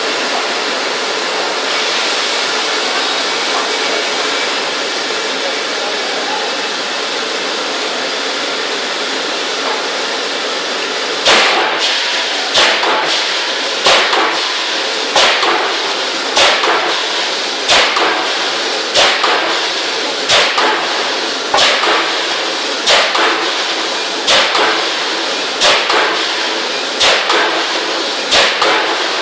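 6-ton Voronezh forging hammer striking a large hot forging in a steady rhythm, about one heavy blow every 1.3 seconds, each with a short metallic ring. The blows start about eleven seconds in, out of a steady loud rushing shop noise.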